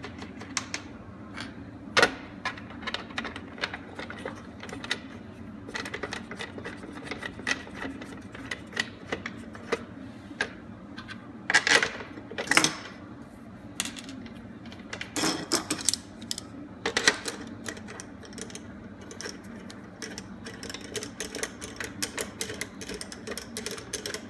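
Hand handling and fitting of plastic and metal router-guard parts on an aluminium router table plate: irregular clicks and taps of the guard bracket and knobs being set in place and turned, with a handful of louder knocks.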